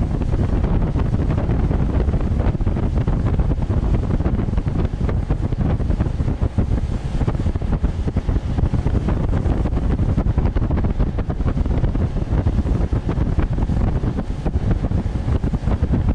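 Heavy wind buffeting on the microphone as a small aluminium boat runs at speed, with the 60 hp outboard motor and rushing water of the wake beneath it.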